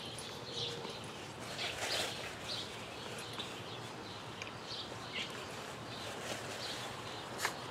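Small birds chirping in short, scattered calls over steady outdoor background noise, with a few sharp clicks, the loudest near the end.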